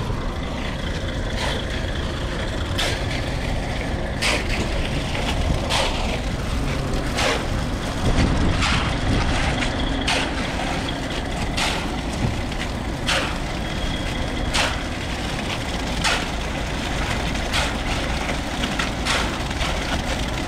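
Heavy road-construction machinery running with a steady low rumble, with a sharp click or knock repeating evenly about every one and a half seconds.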